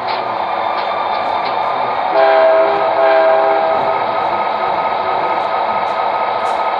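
O scale model train running along the layout track with a steady rolling noise. About two seconds in, its horn sounds two blasts in quick succession.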